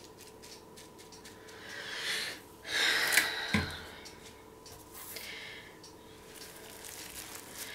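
Faint handling noises: two short rustling swells around two and three seconds in, a light knock about half a second later, and softer rustles near the end, over a faint steady hum.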